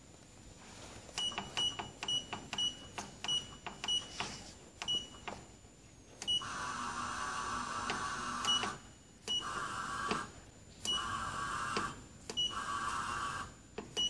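Keypad beeps from a Pangoo Jet A3 UV flatbed printer's control panel, a quick string of short beeps, followed by the printer's bed-lift motor whirring in four short runs. Each run starts with a beep and stops sharply, as the flatbed is stepped up toward the print head to set the print height.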